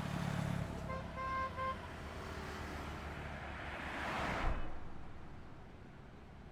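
Highway traffic: a vehicle horn gives two short honks about a second in, then a vehicle passes close by, peaking around four seconds in and fading away.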